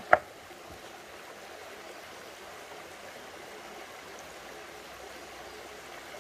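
Shallow rocky stream flowing steadily over stones, a constant even wash of water; one brief sharp sound right at the start.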